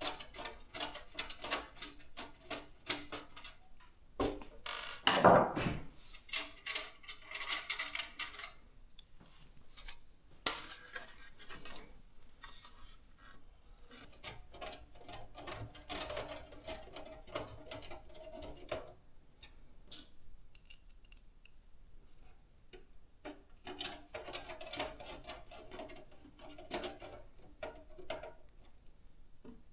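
Hands handling gaming PC parts during assembly: scattered small clicks, taps and rubbing of plastic and metal, with one louder scrape about five seconds in.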